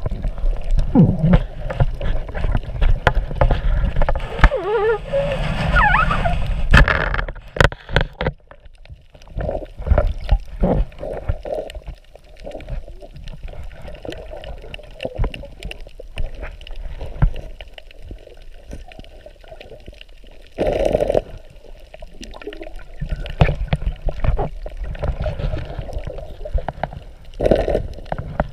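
Muffled underwater sound around a submerged camera: water sloshing and gurgling, with frequent knocks and bumps against the housing. There is a busier gurgling stretch about five seconds in, and louder bumps near the end.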